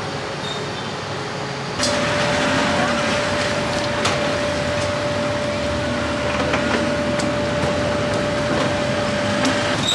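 Steady background noise of passing road traffic, which gets louder about two seconds in, with a steady hum running through it and a few light knocks.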